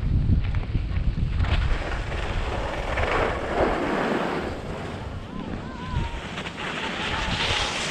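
Wind buffeting the microphone, with low rumbling gusts in the first two seconds. Skis hiss and scrape over packed snow on a downhill run, loudest about three seconds in and again near the end.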